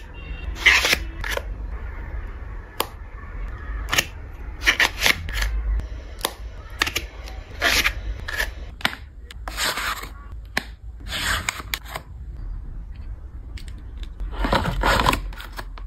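Cosmetic packaging being handled close to the microphone: sharp clicks and taps of long acrylic fingernails on paperboard boxes and plastic cases, mixed with short scraping and rustling as the boxes are opened and the items slid out and turned over.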